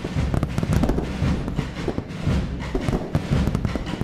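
Festive fireworks salute going off densely: a rapid, irregular run of sharp bangs and crackles over deep booms.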